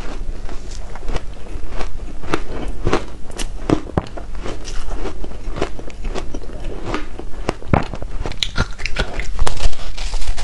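Close-miked biting and chewing of reshaped shaved ice coated in matcha powder: a run of irregular crisp crunches, growing louder and denser near the end.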